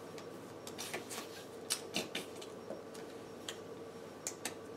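Magic: The Gathering cards being handled on a tabletop: irregular light clicks and taps as cards are picked up, set down and shuffled in the hand, over a faint steady hum.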